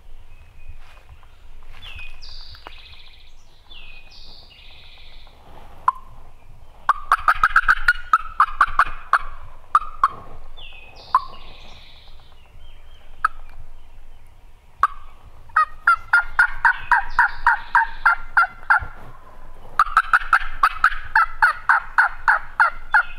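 Turkey calling on a hand-worked turkey call: loud, fast runs of sharp cutts and yelps, each lasting about three seconds, three times. It is aggressive calling meant to fire up gobblers on the roost.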